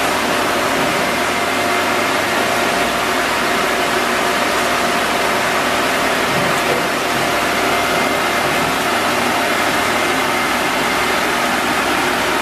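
Fully automatic wood lathe running, a steady mechanical whirring noise with a faint constant whine and no change in pace.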